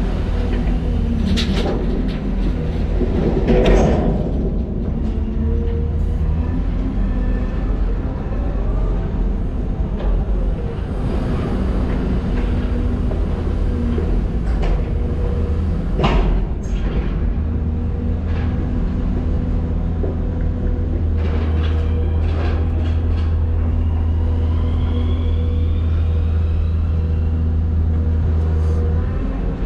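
Heavy diesel machinery working in a cargo ship's hold, its engine running steadily, with a few sharp metal clanks of the bucket and a faint rising hydraulic whine.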